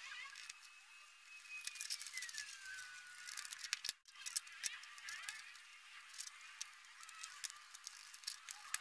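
Faint clicks and ticks of a screwdriver and plastic parts as the Bluetooth speaker's housing is screwed back together. A faint tone falls in pitch over the first few seconds.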